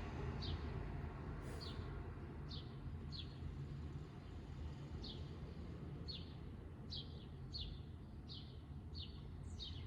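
A bird chirping repeatedly with short, falling high notes about once a second, faint over a low steady hum.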